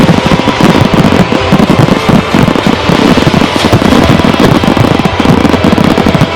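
Rapid, dense barrage of fireworks: many overlapping booms and crackles per second with no break, over music.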